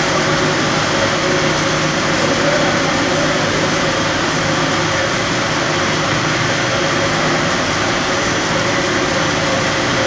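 Polypropylene baler twine production line running: a steady mechanical din from the motors and rollers drawing the tape, with a steady hum underneath.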